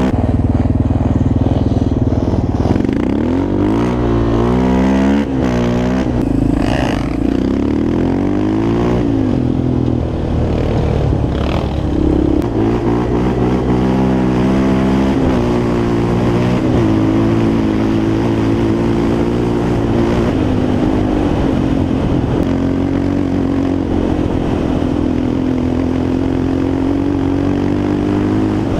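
Sport quad (ATV) engine heard from on board while riding. For the first several seconds it revs up and down repeatedly through throttle and gear changes, then pulls more steadily with small rises in pitch.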